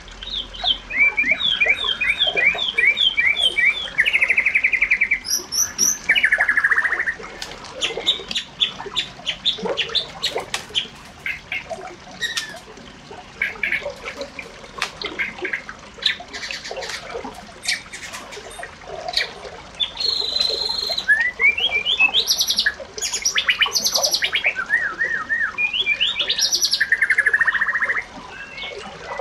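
Birds chirping and calling, with rapid series of short repeated notes and trills.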